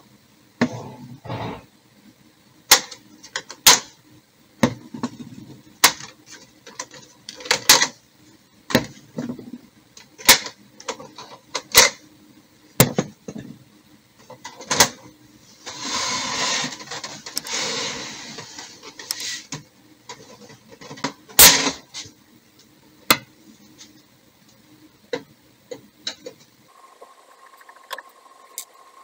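Plastic clicks and knocks from a Kyocera M5526 colour laser MFP being worked on by hand: toner cartridges pulled out of their slots and the front door shut. There is a scraping rustle lasting about three seconds midway.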